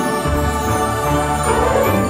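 Background theme music with layered instruments; a low bass line comes in about a quarter second in.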